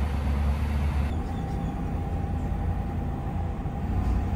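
Steady low road and engine rumble heard inside the cab of a moving pickup truck, with a slight shift in the noise about a second in.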